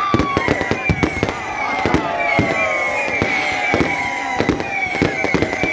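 Dense New Year fireworks display: rapid, irregular bangs and cracks, several a second, with short falling whistling tones over them.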